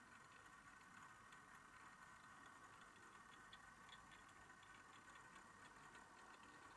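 Near silence: faint room tone with light, irregular ticks.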